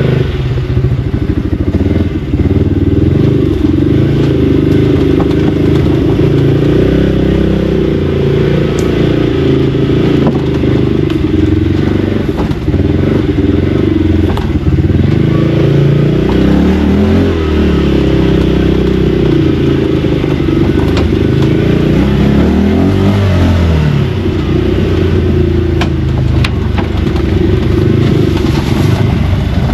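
Off-road four-wheeler engine running hard under throttle, its revs rising and falling repeatedly as the throttle is worked.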